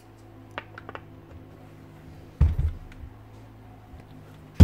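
Parts of a Hilti TE905 demolition hammer being handled and fitted by hand: a few light plastic clicks, a dull thump about two and a half seconds in, and a sharp knock at the very end, over a faint steady hum.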